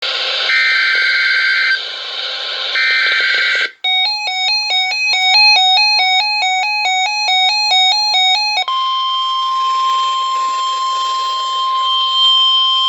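Emergency alert tones. First come two harsh, buzzing bursts of SAME header data. Then a rapid electronic chime of alternating notes runs for about five seconds. About two-thirds of the way in, a single steady alert tone starts and holds: the weather-radio 1050 Hz warning tone.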